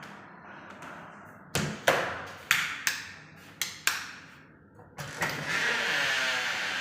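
Carpentry work: a run of about seven sharp knocks, unevenly spaced, then a steady rushing noise that starts about five seconds in and keeps going.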